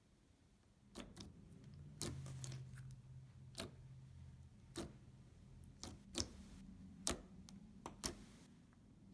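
Thick, clear slime being played with, its trapped air bubbles popping in sharp, irregular clicks, about ten of them. There is a faint low hum of handling underneath.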